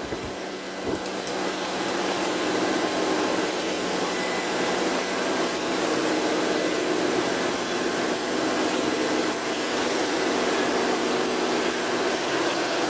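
Plastic extruder machine running steadily: a constant mechanical whir with a faint steady hum.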